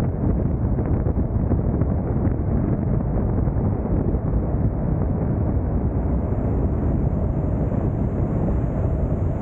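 Car driving at freeway speed: a steady low rumble of wind and road noise, with wind on the microphone.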